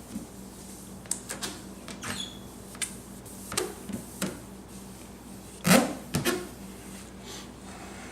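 A cloth wiping polishing compound off a plastic headlight lens: irregular short rubs and scuffs, with a brief squeak about two seconds in and the loudest rubs just before six seconds in.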